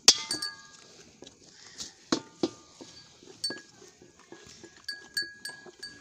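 A metal feed pan clangs sharply once with a ringing tone, followed by two duller knocks and then a run of lighter metallic clinks with the same ring, over faint noises of calves feeding from the trough.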